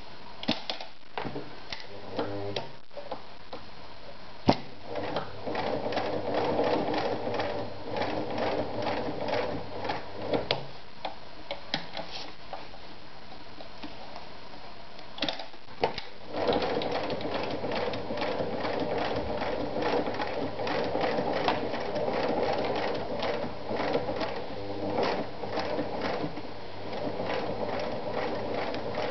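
Singer Starlet 354 electric sewing machine stitching through leather, a fast steady run of needle ticks. It runs from about five to ten seconds in, stops for a few seconds with only scattered clicks, then runs steadily again from about sixteen seconds on.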